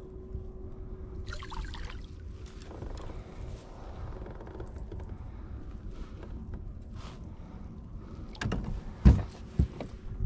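Low rumble of wind and water around a small fishing boat, with a steady hum that stops about three seconds in and scattered light clicks. Several sharp knocks on the boat come near the end, the loudest about nine seconds in.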